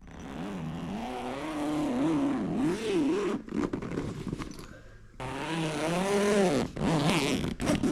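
A long zipper being pulled open in two drawn-out runs with a pause between them, buzzing in pitch as the pull speeds up and slows down. This is plausibly the zipper on the awning's travel cover being undone to open the Openroad 270° awning.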